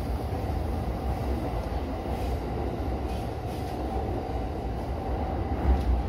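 JR E233-series electric commuter train running at speed, a steady low rumble of its running gear heard inside the driver's cab.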